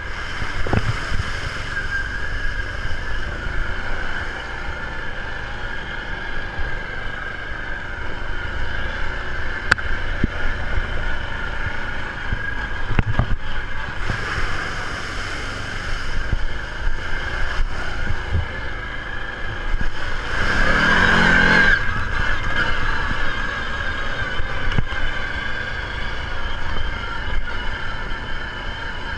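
ATV engine running steadily while riding, with scattered knocks and a louder rush of noise about two-thirds of the way through.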